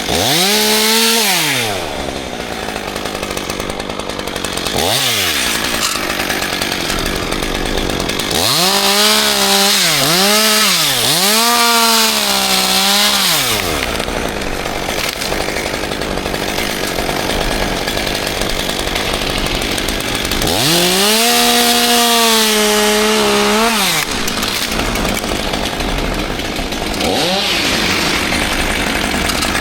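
Two-stroke chainsaw running, revved up to full throttle and back down to idle several times, with one long run of three quick surges in the middle and another long rev later on.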